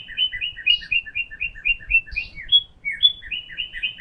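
Northern cardinal singing: phrases of quick, evenly repeated two-part whistled notes, about six or seven a second, each phrase opening with a few higher slurred notes.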